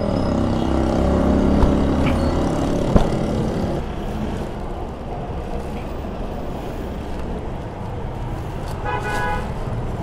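Street traffic: a motor vehicle's engine running close by for the first few seconds, with two sharp clicks, then steadier traffic noise and a short horn toot near the end.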